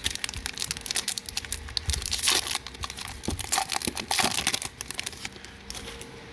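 Foil wrapper of a Magic: The Gathering collector booster pack being torn open and crinkled, a dense crackling that dies down about five seconds in.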